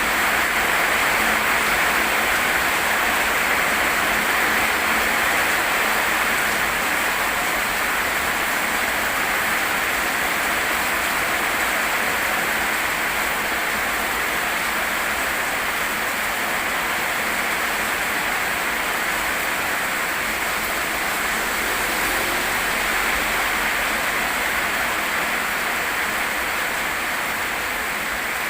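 Steady rain falling: a dense, even hiss that keeps up without a break.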